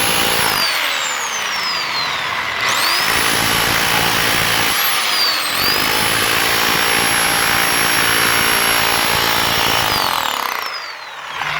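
Bauer 1641e-b rotary hammer running in hammer-only chisel mode, chipping into concrete. Its motor slows and then speeds back up twice, and it winds down near the end.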